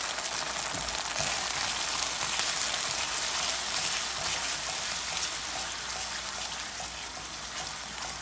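Ketchup and brown sugar sizzling in a hot nonstick wok as they are stirred with a silicone spatula: a steady hiss that eases slightly toward the end. The sugar is cooking into the ketchup and darkening it.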